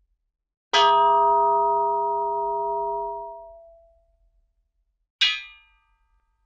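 Cartoon metallic clang sound effect: one sudden struck-metal hit under a second in that rings and fades over about three seconds, then a second, shorter and brighter metallic ding near the end.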